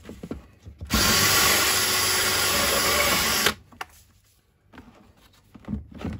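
A DeWalt cordless drill spins a 25 mm hole saw through the thin plastic wall of a storage box, in one steady run of about two and a half seconds starting about a second in. A few light knocks follow as the box and drill are handled.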